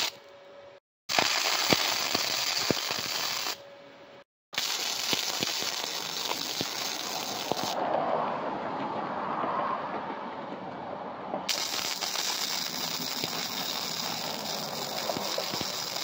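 Arc welder tack-welding a steel gusset to a mini trike frame: the arc's steady crackling hiss, cut off twice briefly near the start and weaker for a few seconds in the middle.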